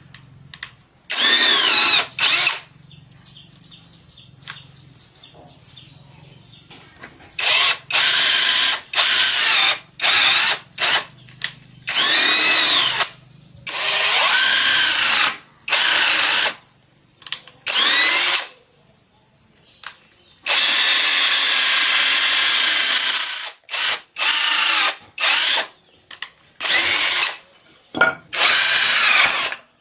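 Handheld power tool, drill-like, run in a series of short trigger bursts, over a dozen in all, its motor pitch rising as it spins up and falling as it stops. The longest single run lasts about three seconds, past the middle.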